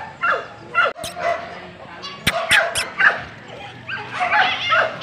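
An Alaskan malamute calling in short, high notes that rise and fall in pitch, several a second. A quick run of three sharp clicks comes a little over two seconds in.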